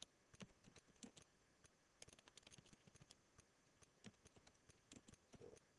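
Faint, irregular clicking of a computer keyboard being typed on, several key clicks a second.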